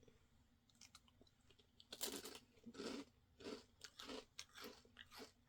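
Biting into and chewing a thin, crisp sandwich biscuit with tangerine cream filling. There is a crunchy bite about two seconds in, then steady crunching chews, roughly two a second.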